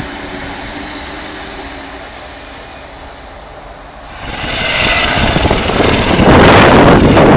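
A tram running past and fading away. About four seconds in, a helicopter flying low overhead comes in, rising quickly to a loud, dense rushing noise.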